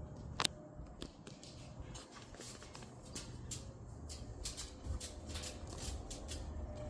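Gusty wind rumbling on the microphone, with scattered light clicks and rustling throughout.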